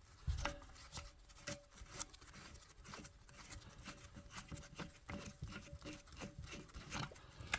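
Faint scattered clicks and light plastic knocks of hands taking apart a toilet fill valve assembly.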